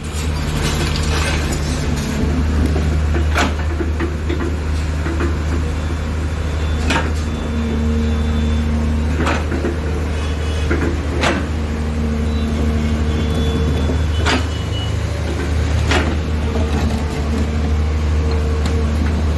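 Excavator's diesel engine running steadily under load, with a whine rising now and then and a sharp knock every two to three seconds.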